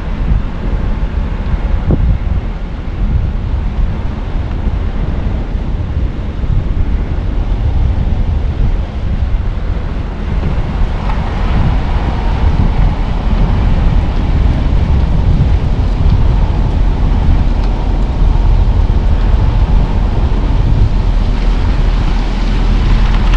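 A car driving: a steady low rumble of road and engine noise with wind buffeting the microphone. A brighter hiss joins about halfway through.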